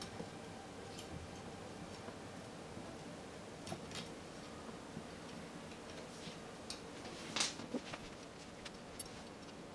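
Steel bicycle spokes ticking and clicking against one another and the hub flange as they are threaded into a hub motor to lace the wheel. The light metallic clicks come irregularly, with the loudest one about seven and a half seconds in.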